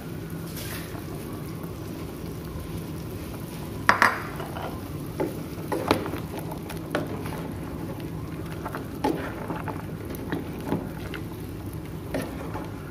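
Chicken pieces boiling in a pot of water, a steady bubbling, while a plastic ladle dips and stirs in the pot to skim off the fat. From about four seconds in come short clacks and splashes roughly once a second.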